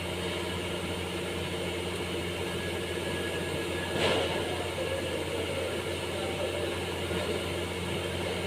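Steady mechanical hum, with a single short knock about four seconds in.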